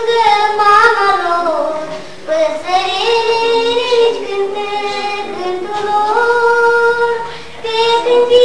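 A young girl singing a song unaccompanied. She holds long notes with small glides in pitch and breaks off briefly twice between phrases.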